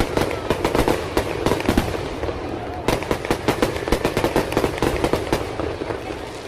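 Fireworks display: a dense run of sharp cracks and bangs in quick succession. They come thickest about three seconds in and thin out near the end.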